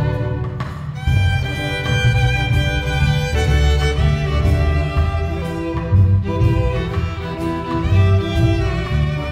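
Chamber ensemble of string quintet, flute, horn and percussion playing an arrangement of a popular song, with bowed violins carrying long held notes over a pulsing low bass line.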